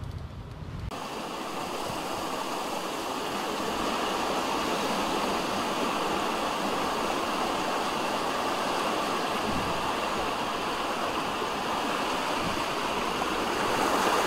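A steady rushing hiss of heavy rain and water, starting abruptly about a second in.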